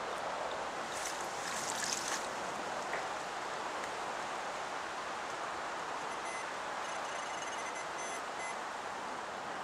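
Steady outdoor rushing noise at the riverbank, like wind or moving water, with a brief rustle between one and two seconds in.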